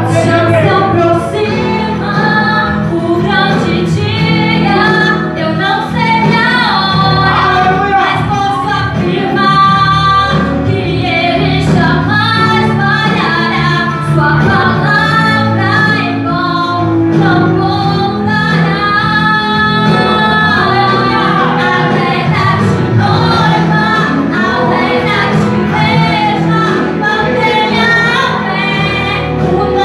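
Gospel worship song: a woman singing over a band accompaniment.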